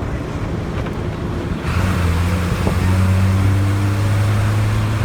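Motor vehicle running, with wind and road rumble; about a second and a half in, a deep steady engine hum comes in and holds almost to the end.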